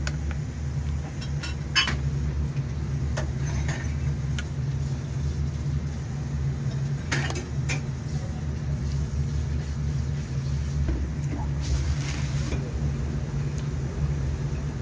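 Restaurant kitchen noise: a steady low hum with occasional light clinks and taps of dishes and utensils, a few at a time.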